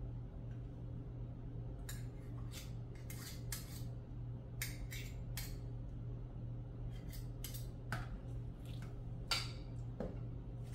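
A ladle scraping and clinking against a pot as thick champorado (chocolate rice porridge) is stirred, in irregular strokes, over a steady low hum.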